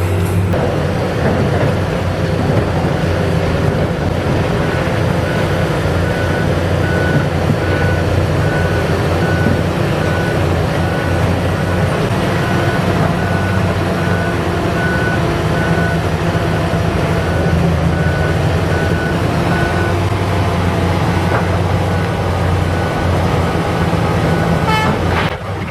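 Diesel engine of a ChTZ B10M swamp dozer running steadily under load. From about halfway through, a machine's warning beeper sounds at an even pace.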